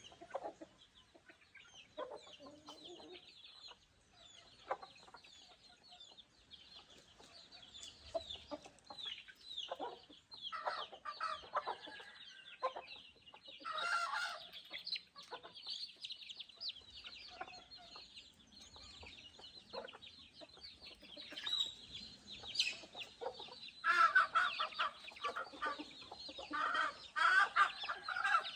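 A flock of chickens clucking, with many short calls overlapping; the calling grows busier and louder near the end.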